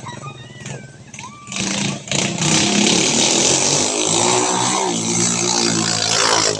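An engine running, then revving up loudly about a second and a half in, its pitch rising and falling.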